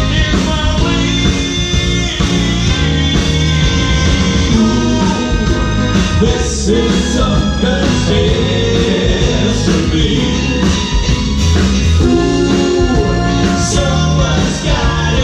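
Live band playing a song with singing: trumpet and trombone horn lines over drums, electric guitar and keyboard.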